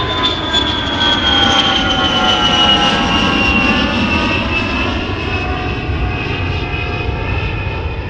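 Nissan Versa's four-cylinder engine running under the open hood, with a high whine that falls slowly in pitch throughout.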